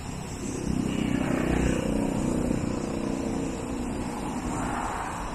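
A vehicle engine passes, swelling about a second in and then fading over the next few seconds.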